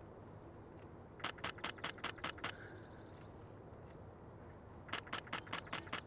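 Camera shutter firing in two rapid bursts of about seven clicks each, about five a second, the first about a second in and the second near the end.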